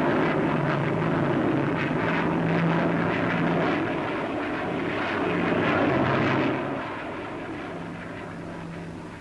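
Boulton Paul P.111A delta-wing research jet in flight: a steady jet roar with a low hum running under it. It is loud for most of the stretch, then falls away about seven seconds in.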